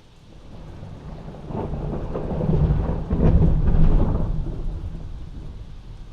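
A rumble of thunder heard from inside a house over steady rain: it builds over about two seconds, peaks in the middle with crackling, and rolls away by the end.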